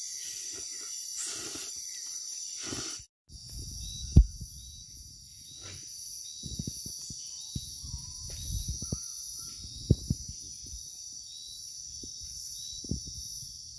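Steady shrill chorus of night insects such as crickets. For the first three seconds it comes with a man slurping and eating noodles. After a sudden break there are scattered knocks, the sharpest about four seconds in and again near ten seconds.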